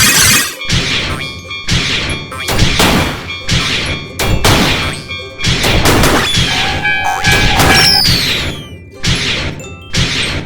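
Cartoon sound effects over music: a busy run of crashing, clanging hits about twice a second, with ringing dings, a brief held tone and falling whistle-like glides past the middle.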